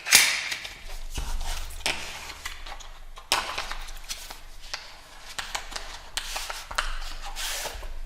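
A product box being opened and its packaging handled: a loud scrape right at the start, then a run of rustles, clicks and light knocks.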